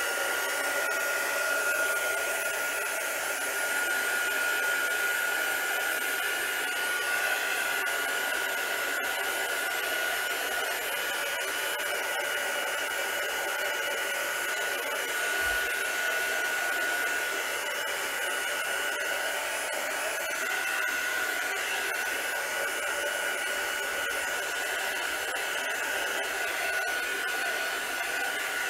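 Small handheld craft dryer blowing steadily to dry a coat of gesso: an even rush of air with a steady high whine.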